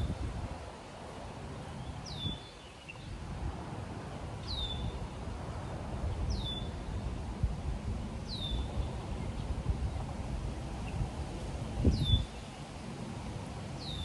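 A bird repeating a short, high, downward-slurred call about every two seconds, over a low rumble of wind on the microphone that gusts briefly near the end.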